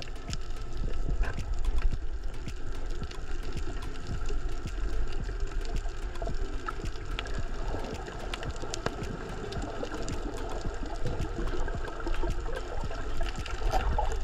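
Underwater ambience recorded by an action camera in its housing: a steady, muffled low rumble of water, with many small sharp clicks and crackles scattered throughout.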